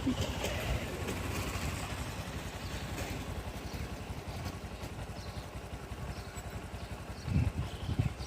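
A small vehicle's engine running steadily, heard from on board while riding, with a brief louder low rumble about seven seconds in.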